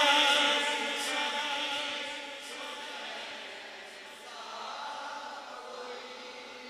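A man's sung devotional line trails off through the hall's loudspeakers. Softer voices of the gathering then chant the refrain together, with a swell about four seconds in before fading.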